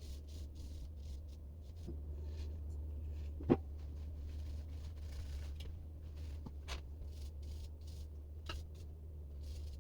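Faint rubbing and scratching of old thermal paste being wiped off a laptop heatsink, with a few light clicks, the sharpest about three and a half seconds in, over a steady low hum.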